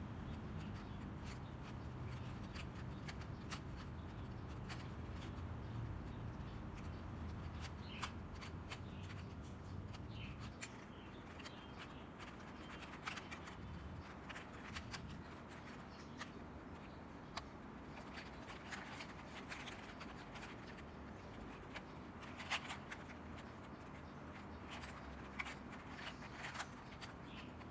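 Plastic 3x3 puzzle cube being turned by hand: irregular faint clicks and rasps of the layers twisting, with a few sharper snaps, over a low background hum that eases about a third of the way in.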